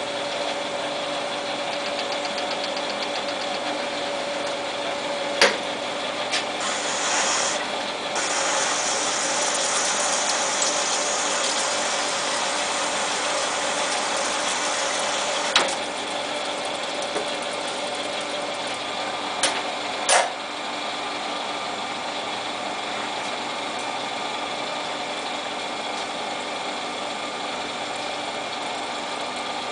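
Small Jet TL-25 turret lathe running steadily with a machine hum, broken by four sharp metallic clicks as the machine is worked. A brighter hiss holds for several seconds in the first half.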